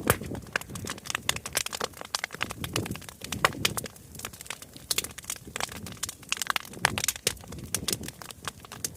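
Large bonfire crackling, with many sharp, irregular pops and cracks; the loudest come about three and a half seconds in and again around five seconds.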